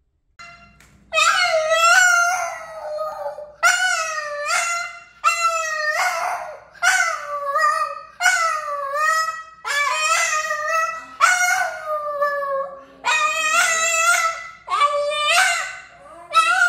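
Boston terrier howling in a run of about a dozen short yowls that bend up and down in pitch, starting about a second in: the dog demanding that its ball be thrown.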